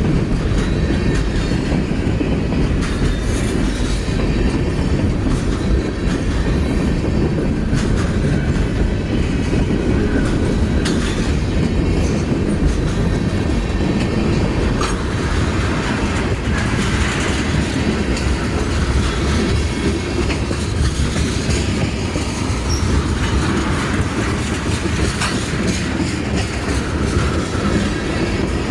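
Freight train cars rolling steadily past, wheels clacking over the rail joints, with a faint wheel squeal now and then.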